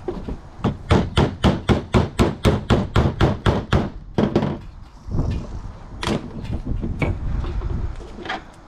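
A rapid run of hammer strikes on a UTV axle assembly, about five blows a second for some three and a half seconds, then a few single knocks about a second apart.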